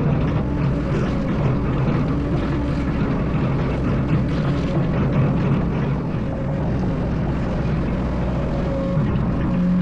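Excavator's diesel engine running steadily at working speed, a constant drone whose pitch shifts slightly as it works.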